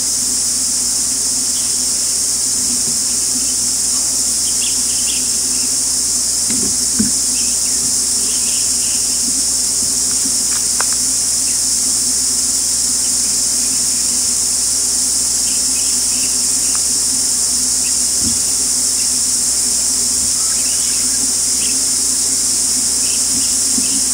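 A loud, steady high-pitched insect chorus drones on unbroken, with scattered faint short chirps over it.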